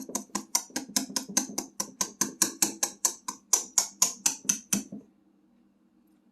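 Batter being stirred or whisked by hand in a mixing bowl: an even rhythm of scraping strokes, about five a second, that stops about five seconds in. A faint steady hum is left afterwards.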